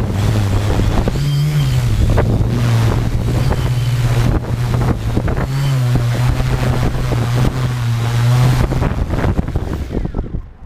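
Tarot 650 quadcopter's brushless motors and propellers humming loudly, the pitch rising and falling a few times as the motor speeds change in strong gusty wind, with wind buffeting the microphone. The hum dies away about ten seconds in.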